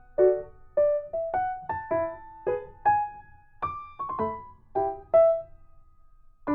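Background music: a gentle piano or electric-piano melody of single notes played a few per second, each note fading before the next.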